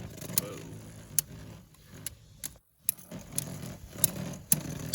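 3D-printed custom Beyblade tops spinning in a stadium, with scattered sharp clacks as they hit each other or the stadium wall, over a low faint whir.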